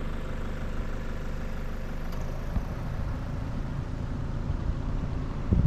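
Four-wheel-drive vehicle's engine running as it drives along a dirt road, a steady low drone with an occasional low knock and a louder burst near the end.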